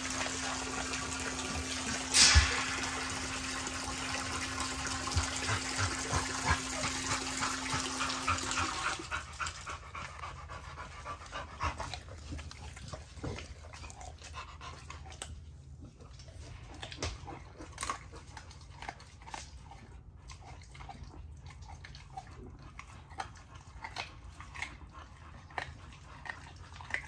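Pit bulls chewing raw chicken leg quarters, with scattered short crunches of bone. A sharp knock comes about two seconds in, and a steady hum and hiss stops about nine seconds in.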